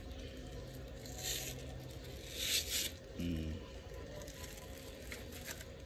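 Dog diaper being pulled open and off: two short tearing rips, like tape or hook-and-loop fastening coming apart, followed by a brief low grunt.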